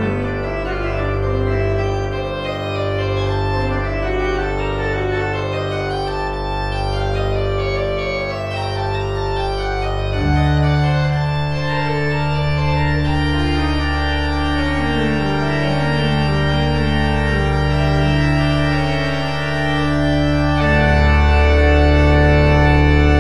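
Church organ playing a slow piece in long held chords over sustained bass notes. The harmony changes about ten seconds in, and a fuller, louder chord is held near the end.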